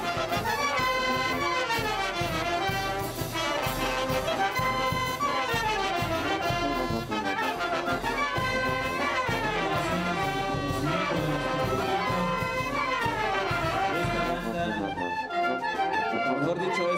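Oaxacan banda filarmónica (brass and wind band) playing dance music, trumpets and trombones running up and down the scale in repeated phrases.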